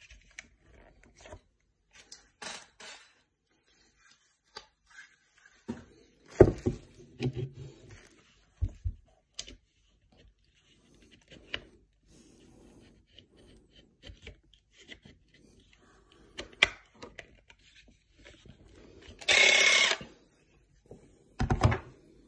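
Handling sounds of a DeWalt cordless jigsaw: scattered clicks, knocks and rubs as its metal base shoe is worked by hand, with a sharp knock about six seconds in. Near the end there is a brief steady noise of under a second, then a knock as the saw is set down on its shoe.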